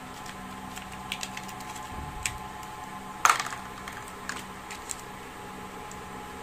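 Handling noise of wired earphones and their plastic packaging: scattered light clicks and taps as the earphones are unwrapped and the cable is uncoiled, with one sharper click about halfway through, over a steady background hum.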